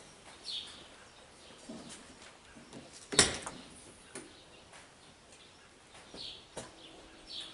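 A few faint, short bird chirps over quiet background, with several sharp clicks or knocks, the loudest about three seconds in.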